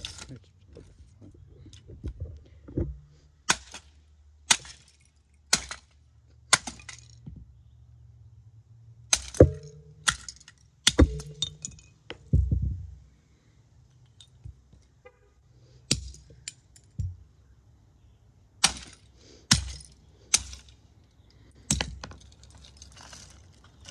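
Broken plastic casing and parts of a smashed CD player radio handled and set down on concrete: irregularly spaced sharp clacks and knocks with short pauses between them.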